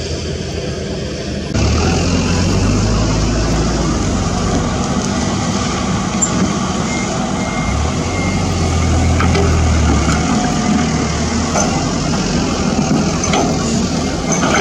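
Diesel engine of a Toyota Dyna dump truck running as the truck drives slowly over a rough dirt track, a steady low drone that gets louder about a second and a half in. Short beeps sound now and then in the background.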